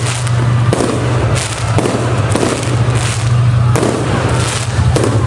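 Aerial fireworks bursting one after another, about six loud bangs with crackling in between, over a steady low rumble.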